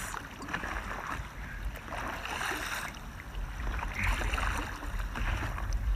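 Water splashing and sloshing around a stand-up paddleboard moving through choppy lake water, swelling about every two seconds, with a steady rumble of headwind on the microphone.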